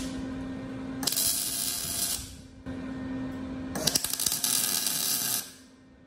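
Wire-feed welder laying two short tack welds on steel plate, each a burst of crackling arc hiss lasting a second or so, with a steady low hum between them and after.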